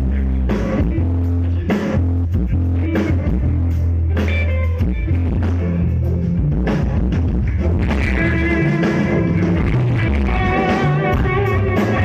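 Live band playing a bluesy rock number: electric guitar over bass and drums. A higher melody line comes in over the second half.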